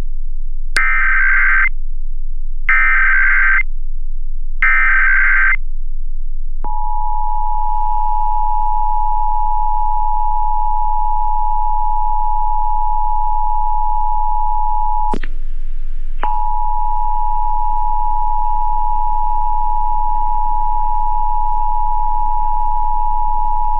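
Emergency Alert System National Periodic Test signal: three one-second bursts of SAME header data tones, then the steady two-tone EAS attention signal. The attention signal cuts out with a click for about a second midway, then resumes.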